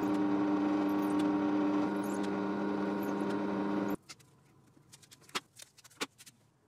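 Benchtop drill press motor running steadily while a small bit bores holes through a thin hardwood board, cutting off suddenly about four seconds in. After that come a few faint clicks and rustles as a paper drilling template is peeled off the wood.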